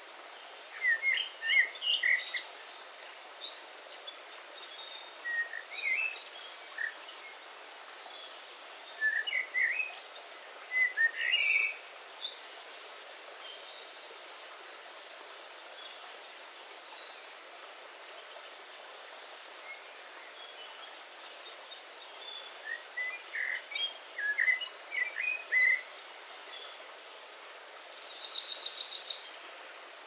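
Several birds singing over the steady rush of a small forest stream, its low rumble filtered out. Rows of quick high chirps run through it, with lower whistled phrases, and a fast trill near the end.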